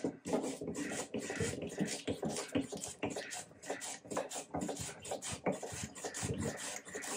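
Small metal hand plane shaving a maple bridge blank: quick, short cutting strokes of the blade across the wood, a few a second in an uneven rhythm.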